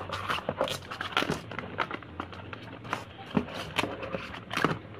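Small cardboard product cartons and tubes being rummaged and shifted inside a cardboard box: irregular light taps, clicks and rustling.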